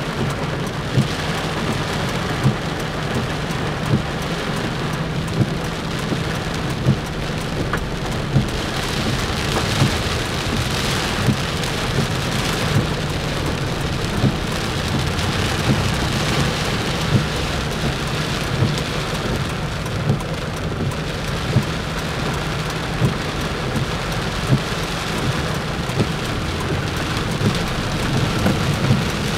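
Heavy rain drumming on a car's roof and windshield, heard from inside the car, over a low steady rumble. A short thump comes about every second and a half.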